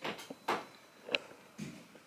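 A few light clicks and knocks of things being handled, one about a second in with a brief high ring.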